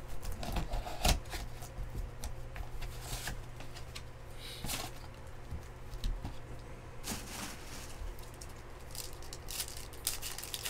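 Scattered soft rustles, taps and clicks of hands handling a cardboard trading-card box and a stack of baseball cards.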